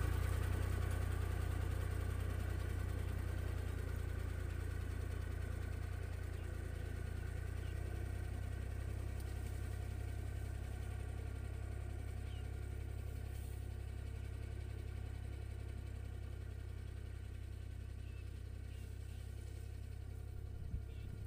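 Tractor engine running steadily while pulling a ridging implement through dry soil, slowly fading as the tractor drives away.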